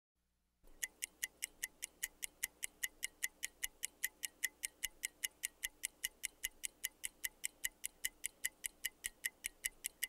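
Mechanical microwave dial timer ticking steadily, about five sharp ticks a second, starting under a second in.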